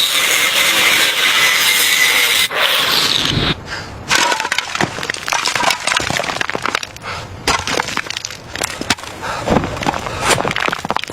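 A steady hissing noise for about three and a half seconds, then a long run of irregular cracks, snaps and clatters, typical of material being broken or pried apart.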